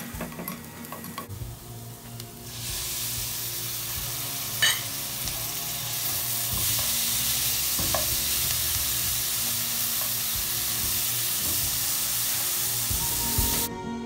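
Onion, spice and tomato masala frying and sizzling in a nonstick pan while it is stirred with a plastic spatula. The sizzle comes in suddenly about two and a half seconds in, grows louder around six seconds, and has a couple of sharp knocks, the loudest about four and a half seconds in. It cuts off just before the end.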